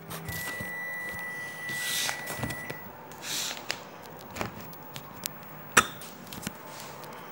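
Kitchen handling noises at a counter: rustling and a few sharp clicks and knocks, one louder than the rest near the end. A steady high beep-like tone sounds for about two and a half seconds near the start.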